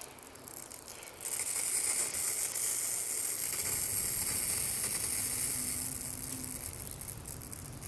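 In-ground sprinkler head hissing as water pressure builds and it sprays, starting about a second in and easing off near the end.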